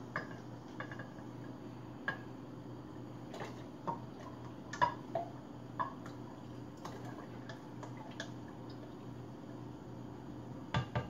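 A metal spoon scraping and tapping inside a tin can of sweetened condensed milk: scattered clinks, some with a short metallic ring. A quick run of louder knocks comes near the end, over a steady low hum.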